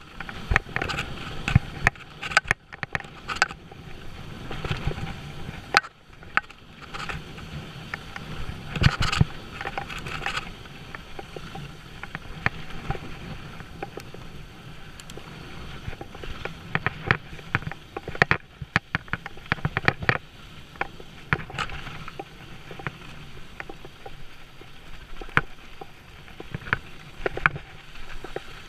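Mountain bike riding fast down a rocky dirt trail: a steady rumble of tyres on dirt and loose stones, broken by frequent sharp rattles and knocks as the bike hits rocks and bumps.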